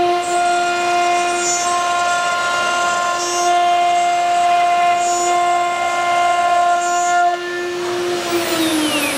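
High-speed spindle of an ATC CNC wood router (9 kW HSD type) running, a steady high whine of several tones over a rushing hiss. Near the end the whine starts to fall in pitch as the spindle begins to spin down.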